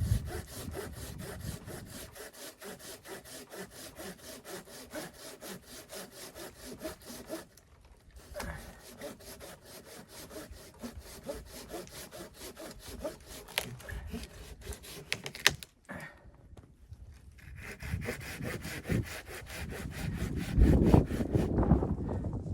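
Hand saw cutting through wood in quick, even back-and-forth strokes. The strokes pause briefly twice and grow louder and rougher near the end.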